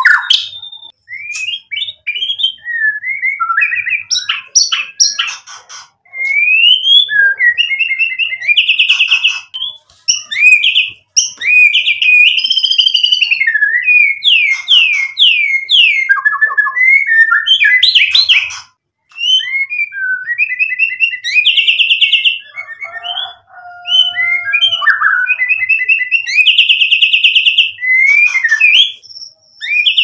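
White-rumped shama (murai batu) singing a long, varied song: clear rising and falling whistles, runs of quickly repeated notes and fast trills, broken by short pauses.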